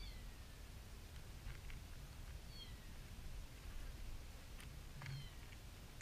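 Kitten mewing: three short, high mews, each falling in pitch, about two and a half seconds apart, with a few small clicks between them.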